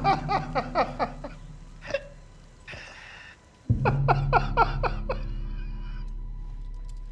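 A man's uncontrollable, convulsive laughter in rapid short bursts, each falling in pitch. It breaks off with a breath, then starts again about four seconds in as a low sustained musical drone comes in and holds.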